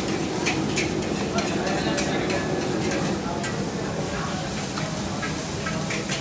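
Food frying in a pan at a food stall: a steady sizzle, with a dozen or so sharp metal clinks and scrapes of a utensil against the pan, and chatter behind.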